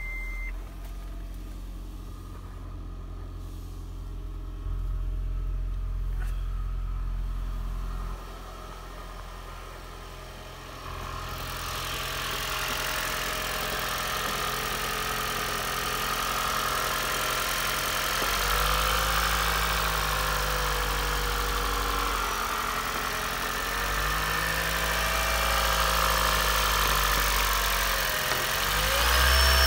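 Toyota Prius 2ZR-FXE 1.8-litre four-cylinder petrol engine starting up by itself about eleven seconds in, after a short beep and a low hum, then running with its speed rising and falling several times as the hybrid system warms it up.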